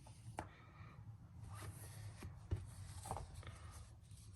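Soft rustling and sliding of paper comic books being handled and leafed through from a box, with a few light taps.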